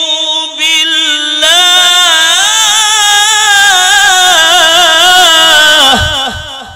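A man reciting the Quran in melodic tajwid style, drawing out one long elongated note. A held tone first, then about a second and a half in a louder, higher line with wavering ornamental turns, sustained for several seconds before it drops in pitch and fades near the end.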